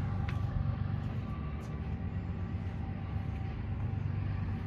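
A steady low mechanical hum, like a motor running, with a few faint clicks.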